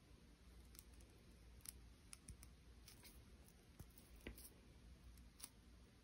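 Faint, sharp clicks of steel jewelry pliers closing on and tucking in the cut ends of copper wire coiled on a ring, about eight scattered clicks.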